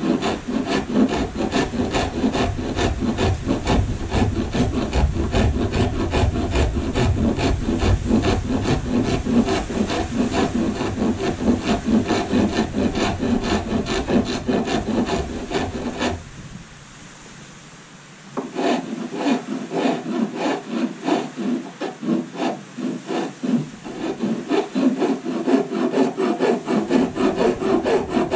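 Small hand rasp filing carved wood, rapid back-and-forth rasping strokes roughing out the tip of a carved tail. The strokes stop for about two seconds a little past the middle, then start again.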